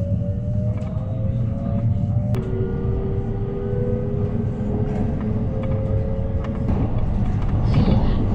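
Electric train heard from inside the carriage as it gathers speed out of a station: the traction motors' whine rises in pitch, drops suddenly to a lower pitch a little over two seconds in, then climbs slowly again. The wheels rumble steadily on the rails beneath it, and the running noise grows louder and rougher, with a few clacks, near the end.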